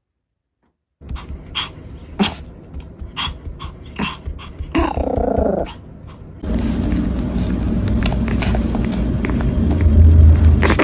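A dog giving one growling vocal call about a second long, amid scattered clicks and knocks. From about six and a half seconds a steady rumbling noise takes over.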